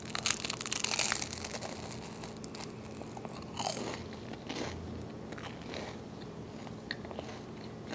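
Biting into the crisp crust of a homemade French baguette: a burst of crackling crunches in the first second or so, then quieter chewing of the bread. The crunch is the sign of a thin, very crispy crust over a light crumb.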